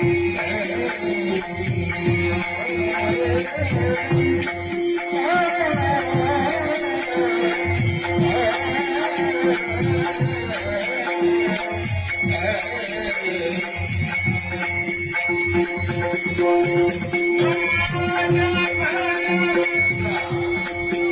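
Indian folk devotional singing with a steady drone note and a shaken rattle-type percussion keeping a dense rhythm; a voice sings a wavering melodic line in stretches, about five seconds in and again near the end.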